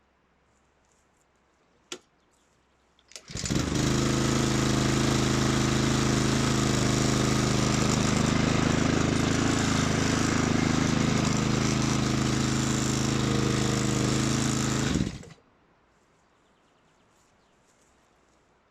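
Petrol lawn mower engine running steadily for about twelve seconds. It starts a few seconds in, just after a single click, and cuts off suddenly.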